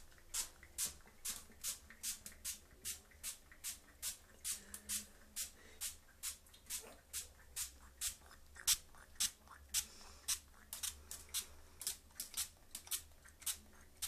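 Hand-held spray bottle squirting water onto a cockatiel in quick, even squirts, about two or three short hisses a second.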